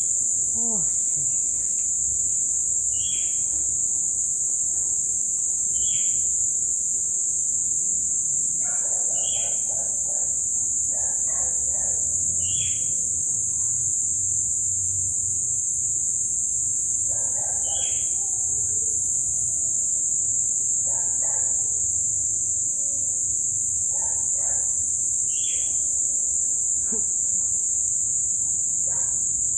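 Dense chorus of crickets, a shrill, steady trill with no break. A short higher chirp recurs every few seconds, and about a third of the way in several lower animal calls start coming in at intervals.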